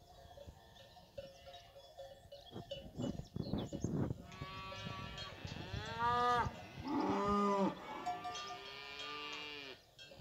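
Fighting-breed cattle lowing: about three long drawn-out moos, each rising then falling in pitch, in the second half, after a few seconds of scattered knocks.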